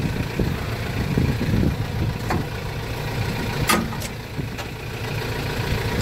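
Kubota M7040 tractor's diesel engine idling steadily, with a few sharp clicks about two and four seconds in.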